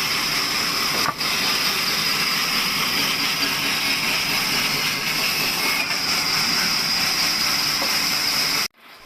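Table sawmill saw running loud and steady, a dense noise with a high whine, which cuts off abruptly near the end.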